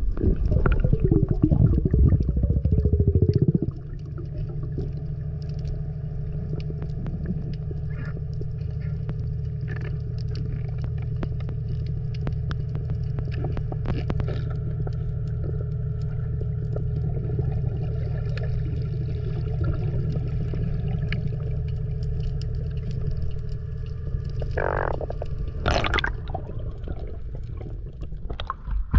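Steady low hum of a loading ship's machinery heard underwater. The first few seconds carry a louder, rougher pulsing noise, and two brief louder sounds come near the end.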